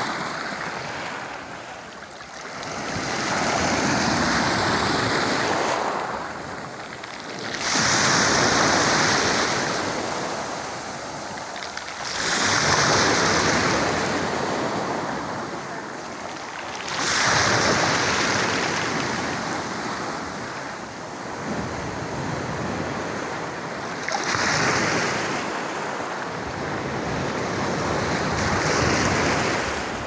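Sea waves breaking and washing up a pebble beach. There are about six waves, one every four to five seconds, each swelling into a hiss and then falling back.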